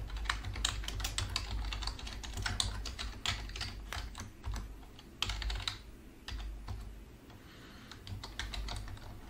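Typing on a computer keyboard: quick, irregular runs of keystrokes, thinning out briefly about two-thirds of the way through.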